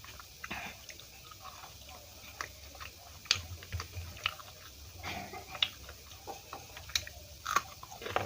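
Close-up eating sounds: wet chewing with soft smacks and irregular clicks of the mouth as Indian food with puri is chewed.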